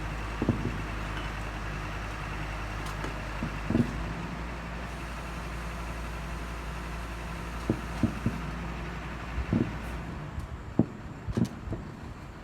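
Fireworks bursting: short bangs at irregular intervals, a few bunched together around eight and eleven seconds in, over a steady low rumble that fades about ten seconds in.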